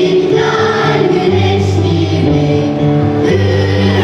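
A student choir singing together over instrumental music, with long held notes.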